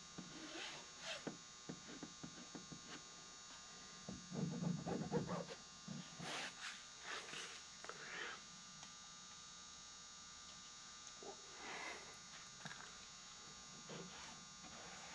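A steady electrical hum, with scattered soft rustles and taps as glued fabric is pressed down by hand with a pencil. A louder low-pitched bout of noise comes about four seconds in and lasts about a second and a half.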